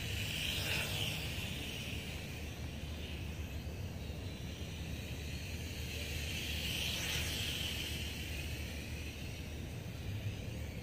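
YX 668 A3 FPV toy quadcopter flying, its propeller whine swelling twice as it passes close, over a steady low rumble.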